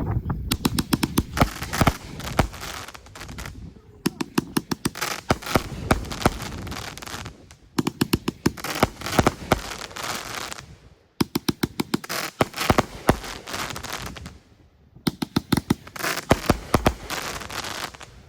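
Intensity 500-gram firework cake firing in volleys of rapid sharp cracks: five bursts of about three seconds each, separated by brief pauses.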